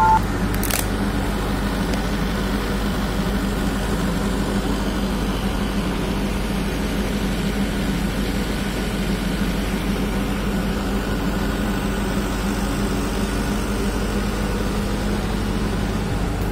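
Steady low hum of running telecom equipment at a mobile-phone tower site, with a constant drone and even noise that does not change.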